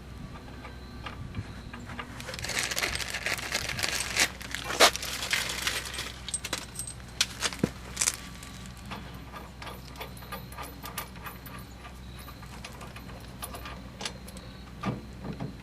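Small metal parts clinking and rattling as they are handled, with scattered sharp clicks and a busier stretch of rattling a few seconds in.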